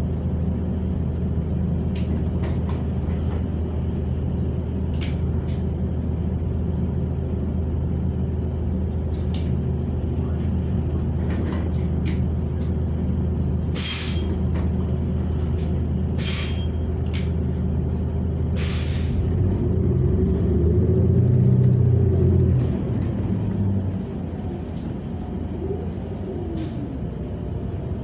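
Interior of a New Flyer XN40 natural-gas city bus on the move: a steady low engine drone with scattered rattles and clicks, and three short hisses of air typical of the air brakes. The engine grows louder for a couple of seconds just past the middle, then eases off.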